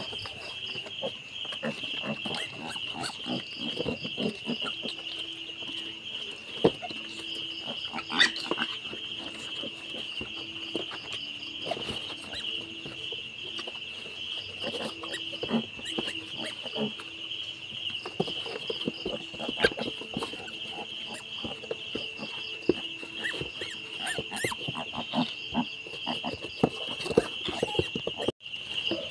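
Sow and newborn piglets grunting and shuffling, with scattered knocks and scuffs, over a steady, finely pulsing high chirping of insects.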